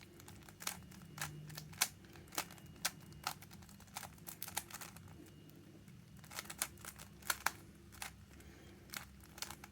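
Rubik's cube being turned one-handed: an irregular run of sharp plastic clicks and clacks as the layers snap round.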